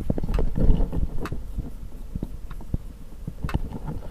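Laptop hard drive knocking and clicking irregularly at power-on, sharp clicks with low thumps about once or twice a second. Most likely a failing hard drive.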